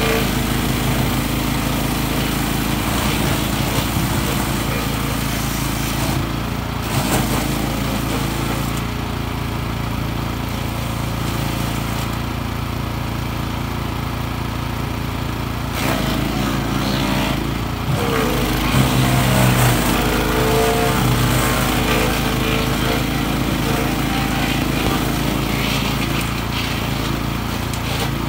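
The 14 hp petrol engine of a PRO-14HP wood chipper runs steadily at working speed. Its note shifts and roughens briefly a few times, most of all for a few seconds about two-thirds of the way in.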